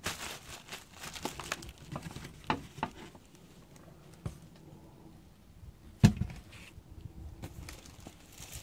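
Cardboard boxes being handled: scattered rustles, scrapes and light knocks, with one sharp, louder thump about six seconds in.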